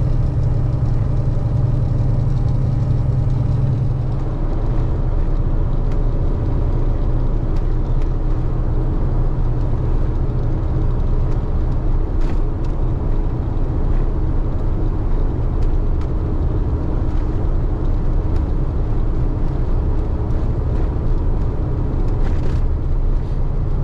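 KamAZ 4308 truck's diesel engine running steadily under way, with tyre and road noise. The low drone eases a little about four seconds in.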